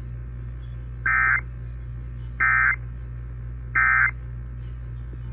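Emergency Alert System end-of-message (EOM) data bursts: three short bursts of digital data tones about 1.3 seconds apart, heard over AM radio with a steady low hum underneath. They mark the end of the relayed alert message.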